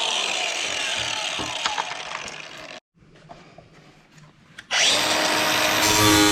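Angle grinder cutting the head off a bolt whose captive nut has spun loose, its whine falling in pitch before it stops suddenly. After a quiet gap of about two seconds the tool noise starts again, with background music near the end.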